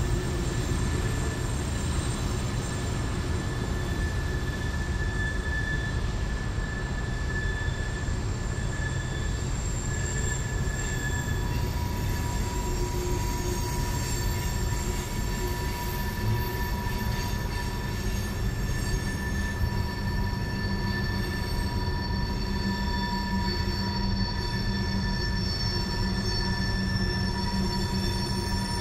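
Freight train cars rolling around a sharp curve, their wheel flanges squealing against the rail in several high, steady tones that come and go, over a low rumble of the train.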